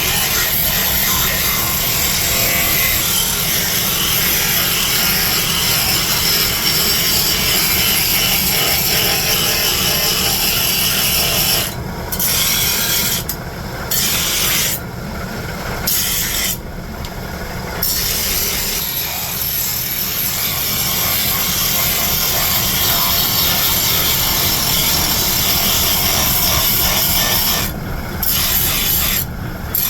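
Steel being worked against an abrasive: a steady, loud rasping grind that breaks off briefly several times in the middle and again near the end.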